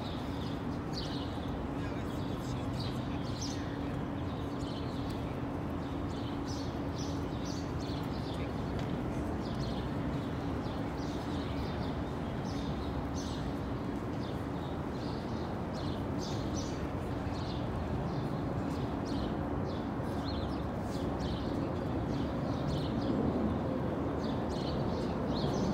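Steady outdoor ambience: a low murmur of people and a steady hum, with faint short high chirps scattered throughout.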